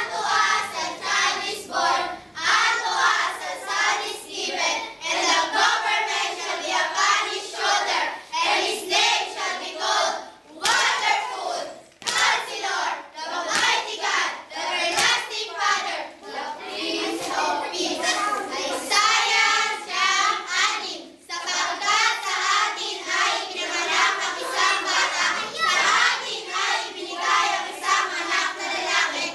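A group of children singing a worship action song together, with a couple of short breaks between lines.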